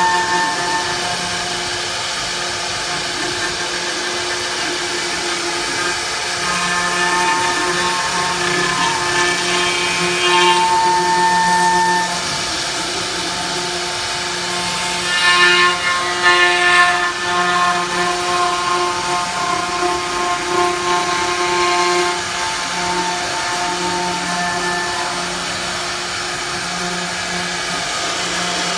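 Spindle motors of a 5-axis CNC router running as they carve polystyrene foam: a steady whine at several pitches over a cutting hiss, louder and rougher for a couple of seconds about halfway through.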